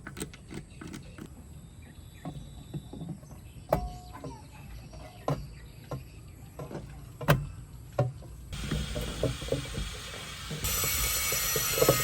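Scattered clicks and knocks of tools and parts being handled, then a steady hiss that starts about two-thirds of the way through and grows louder near the end.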